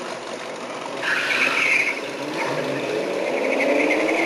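1967 Mustang GTA's 390 V8 revving with a rising pitch, with a high-pitched tyre squeal about a second in that lasts about a second.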